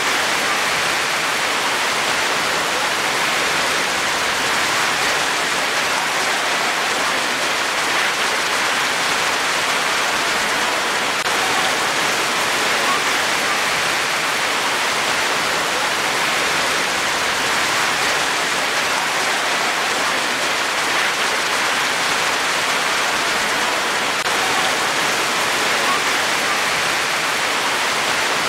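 Steady rain falling: an even, unchanging hiss.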